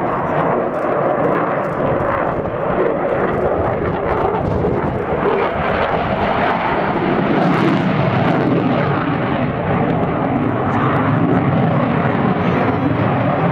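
Canard delta-wing jet fighter flying overhead, its jet engine noise a steady, loud roar.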